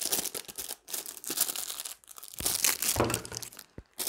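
Plastic MRE packaging, most likely the spoon's wrapper, being crinkled and tugged at by hand as a hard-to-open packet is torn open; the rustling and tearing get louder about halfway through.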